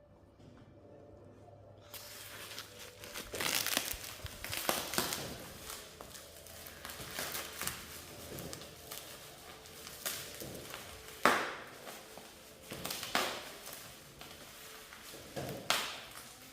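Handlebar packaging being crumpled and torn open by hand: irregular crinkling rustles starting about two seconds in, with a few sharper, louder rips scattered through.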